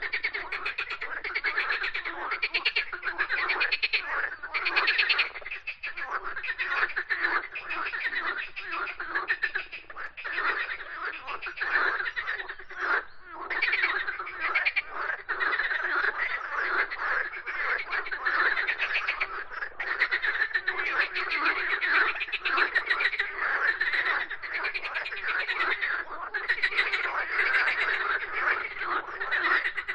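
A dense chorus of many frogs croaking at once, with rapid overlapping pulsed calls and no pauses.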